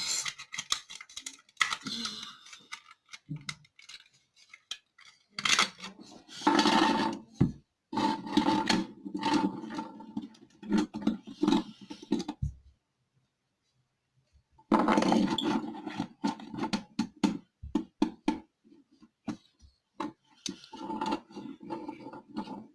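Clicks, knocks and scraping of a plastic smoke detector being handled and opened up, in irregular bursts, with a dead gap of about two seconds midway.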